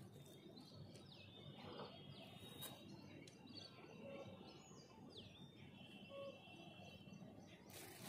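Quiet outdoor ambience with faint birds calling: several short chirps sliding downward in pitch, over a thin steady high note.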